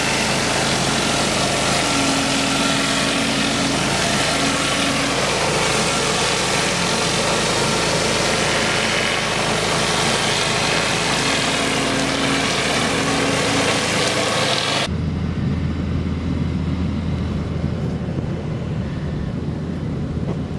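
Pressure washer's engine running steadily under a loud hiss of water spray. About fifteen seconds in the hiss cuts off abruptly, leaving only the engine's low hum.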